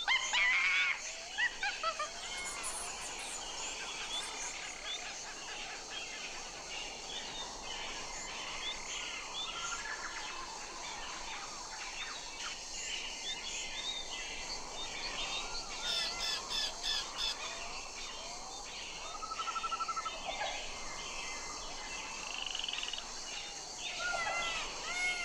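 Several birds chirping, whistling and trilling over a steady outdoor hiss.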